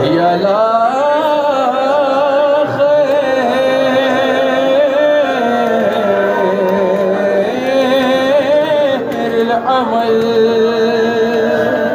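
A single voice singing a slow melody with long, wavering held notes; it begins abruptly at the outset.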